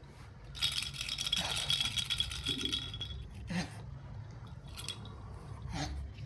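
Cockatoo chick giving a rapid, raspy rattling call for about two and a half seconds, followed by a few short calls.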